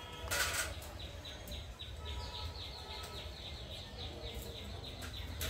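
A bird calling a rapid, even series of short, high chirps for about four seconds, over a steady low rumble. A brief burst of noise comes just before the chirps begin.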